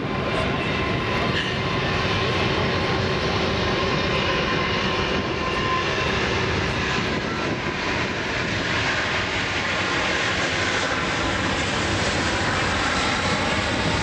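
An Airbus A380-800's four turbofan engines running as the airliner lines up and begins its take-off run. The jet noise keeps up without a break and grows stronger and more hissing in the second half as power comes up.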